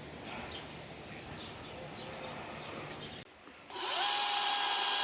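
Faint outdoor ambience with light chirps. Then, after a sudden break about three seconds in, a chainsaw starts up and quickly rises to a steady, high-pitched run at speed.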